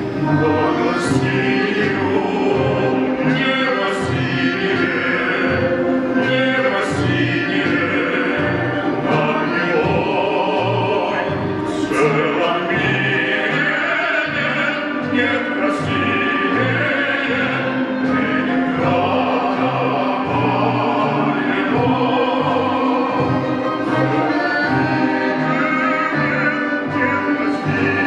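A female soloist singing in classical style, accompanied by an orchestra of Russian folk instruments (domras and balalaikas), with the bass playing a steady beat of about two notes a second.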